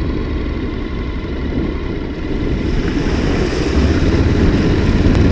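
Motorcycle riding through a ford: a steady low engine and wind rumble, joined about two and a half seconds in by a rising hiss of water spray thrown up by the front wheel.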